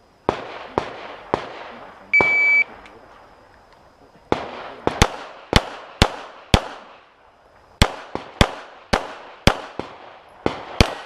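Electronic shot timer's start beep, a steady high tone held about half a second, then a string of handgun shots with echoing tails at an irregular pace, some in quick pairs: a practical-shooting competitor firing a course of fire. A few shots also sound in the first second and a half, before the beep.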